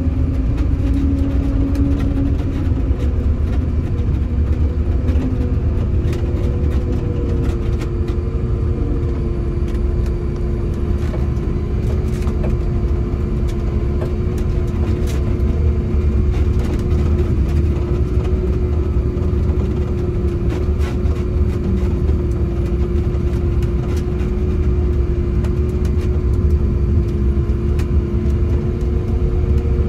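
Prinoth Bison snowcat's diesel engine running steadily while driving, heard from inside the cab. A whine rides on the rumble, shifting pitch over the first several seconds and then holding one pitch, with scattered short clicks throughout.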